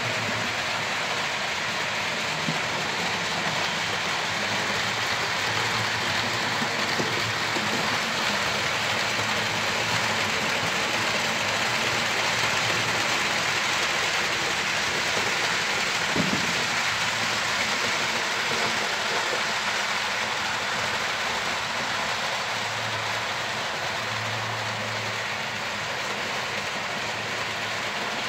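H0-scale model trains running on the layout: a steady rushing hiss of metal wheels rolling on rails and the small locomotive motors, a little louder about midway as a long train of freight wagons passes close.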